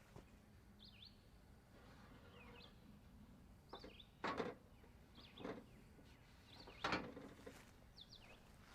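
Quiet outdoor background with small bird chirps scattered throughout and a few soft knocks, about four, between the middle and near the end.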